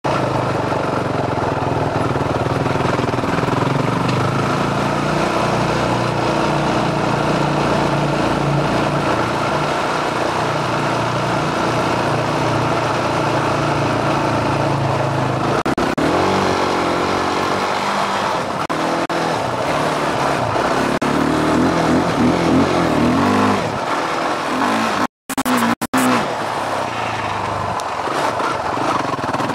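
Yamaha YFZ450R quad's single-cylinder four-stroke engine running steadily, then revving up and down repeatedly from about halfway through, with a brief cut-out in the sound near the end.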